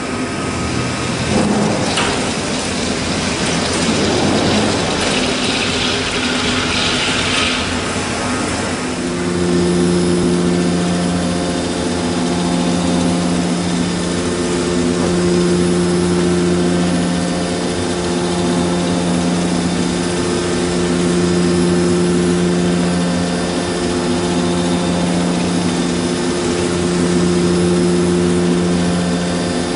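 CNC horizontal boring mill machining metal. For about the first nine seconds there is a rough cutting hiss. It then settles into a steady pitched hum that swells and eases every few seconds.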